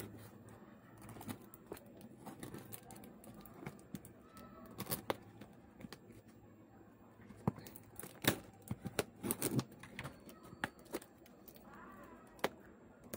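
A shipping package being handled and opened by hand: scattered clicks, taps and rustles of cardboard and plastic wrapping, with a run of louder, sharper clicks in the second half.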